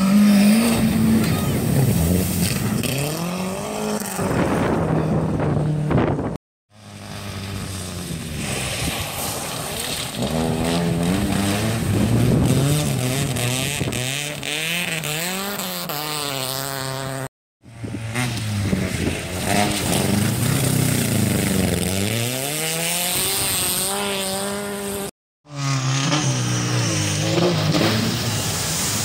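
Rally car engines revving hard through the gears as the cars drive through a shallow river ford, the pitch climbing and dropping again with each gear change, over water splashing. The sound cuts out abruptly three times, for a split second each.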